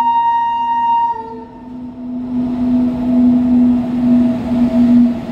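WAG-9 electric locomotive's horn sounding and cutting off about a second in. The locomotive then passes close by with a steady low hum over a rumble that grows louder.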